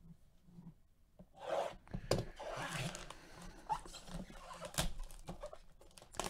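Plastic shrink wrap on a cardboard trading-card box being handled and peeled open: crinkling and rustling with a few sharp clicks, starting about a second and a half in.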